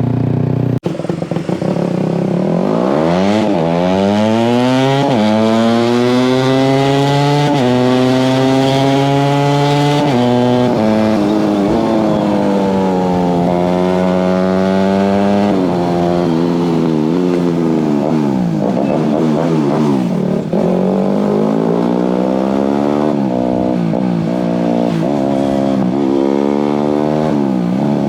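Yamaha MT-15 125's single-cylinder engine through an aftermarket Akrapovic exhaust, pulling hard with the revs climbing and dropping at three gear changes. It then settles, and from the middle on the revs rise and fall again and again with the throttle.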